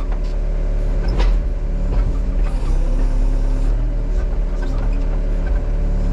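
Case mini excavator's diesel engine running steadily under load while the machine pushes on a tree that won't go over, with one short sharp click about a second in.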